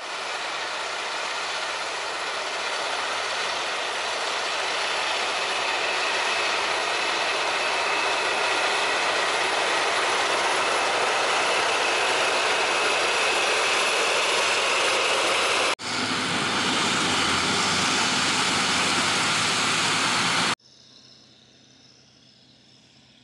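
John Deere 9620RX four-track tractor pulling a cultivator: its diesel engine runs under steady load with the noise of its rubber tracks, growing a little louder as it comes nearer. The sound breaks off briefly about 16 seconds in, then drops abruptly to a faint low sound about 20 seconds in.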